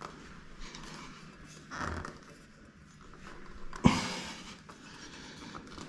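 Handling noise from a black tap fitting being positioned against a tiled wall: a short scrape about two seconds in, then one sharp knock just before four seconds.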